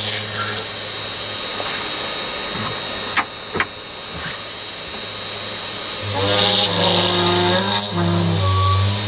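A Machifit 500W ER11 spindle motor runs with a steady hum and a high whine while its drill bores sideways into a metal bar held in the lathe chuck. There are two sharp clicks about three and a half seconds in, and near the end the pitch steps up and down as the drill takes load.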